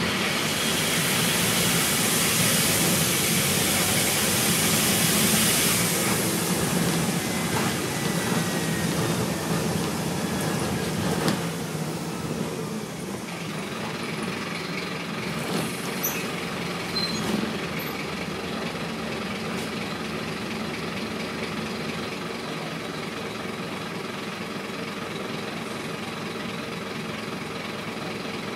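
Scania N230UB single-decker bus heard from inside while it is on the move: a steady engine drone under a loud hiss for the first six seconds, then quieter, steadier running from about thirteen seconds in, with a few short knocks and rattles.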